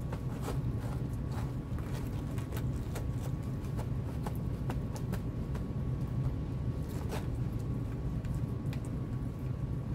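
Rain shower falling: a steady low noise of rain with scattered sharp ticks of drops pattering close by.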